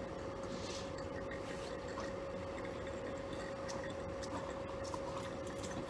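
A steady machine hum holding one even tone, with a few light clicks and ticks over it.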